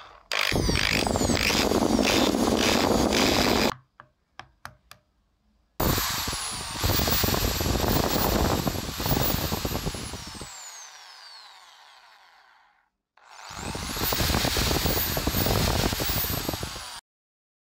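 Bosch GSB 10 RE corded drill's motor running free on a test run after its armature has been replaced. It runs for a few seconds, gives three or four short bursts, then runs again and slowly spins down with a falling whine. A last run cuts off suddenly near the end.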